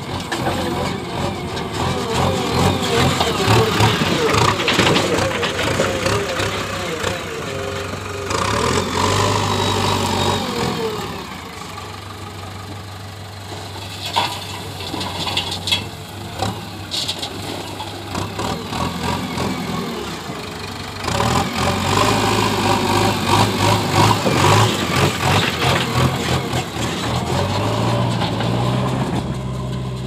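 JCB backhoe loader's diesel engine running under working load, rising in two long loud spells and dropping back toward idle in between.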